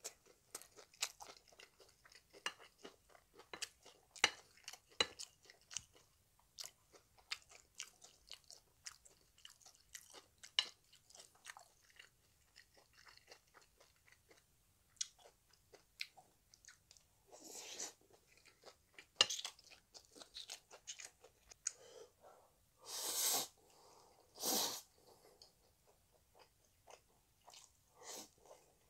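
Close-miked chewing of kimchi fried rice and Chapagetti black-bean noodles: a steady stream of wet mouth clicks and smacks. A few longer, louder rushes of noise come about two-thirds of the way through.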